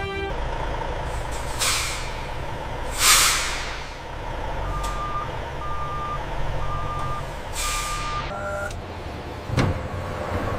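Truck engine running with its air brakes hissing three times, the loudest about three seconds in. Its reversing alarm beeps four times in the middle, and there is a sharp knock near the end.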